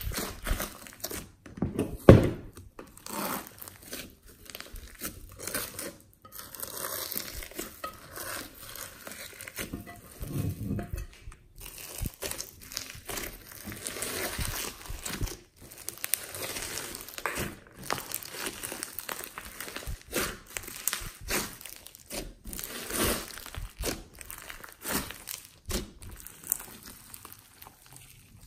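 Hands squeezing, kneading and stretching a big mass of glossy slime packed with foam beads and glitter: a continuous irregular run of sticky small clicks and squelches, with one sharp louder click about two seconds in.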